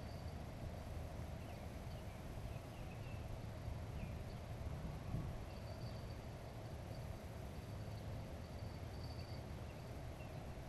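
Riverbank background: a steady low rumble, with a thin high buzz that comes and goes in short stretches and a few faint high chirps.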